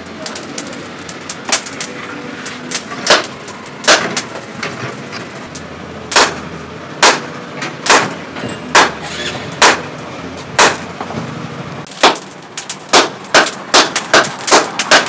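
Hammer blows on steel, sharp ringing strikes about one a second, then coming quicker and closer together near the end.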